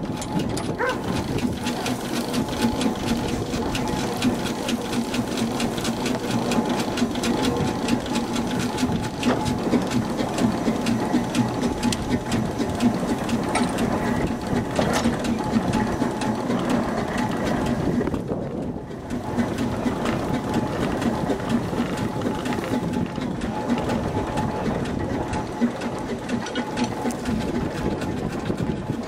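Cable-hauled steam cultivator working across a field: a steady, dense clatter and rattle of its metal frame, wheels and tines, with a steady hum underneath.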